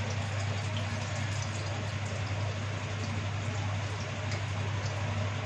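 A steady low hum under an even hiss, with a few faint light clicks.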